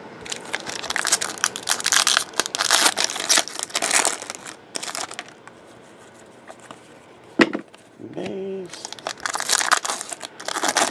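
Foil trading-card pack wrappers being torn open and crinkled, in two spells, the second near the end, with a sharp tap about seven and a half seconds in.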